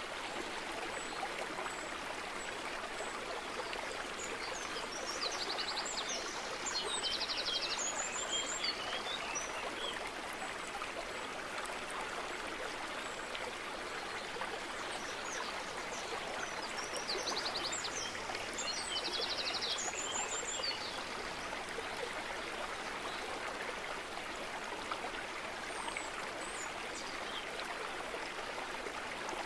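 A steady running stream, with birds chirping and trilling in two short spells.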